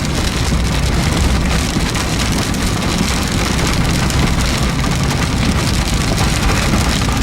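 Heavy rain falling steadily on a car, with the low rumble of the vehicle running underneath.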